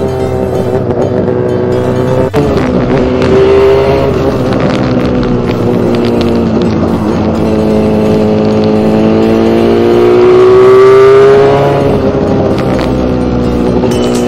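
Two-stroke 250 engine of a mini bike running under way at fairly steady revs, with a brief break in the sound about two seconds in; the revs climb and get louder around ten seconds in, then drop back.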